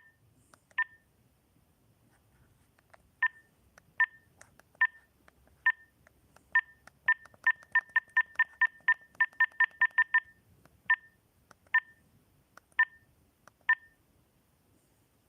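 Short electronic beeps from a mobile phone's keypad or button tone, the same two-note pitch every press. They start spaced out, speed up to a quick run of about fifteen beeps between about seven and ten seconds in, then slow to single beeps about a second apart.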